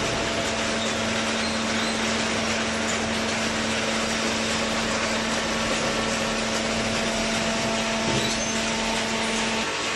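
Cardboard baling machinery running: a steady, noisy mechanical whir with a constant hum that cuts off near the end.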